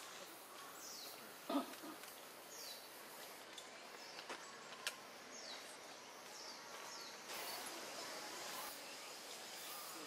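Faint outdoor pond ambience with several short, high bird chirps that fall in pitch, a brief louder low call about a second and a half in, and a couple of sharp clicks.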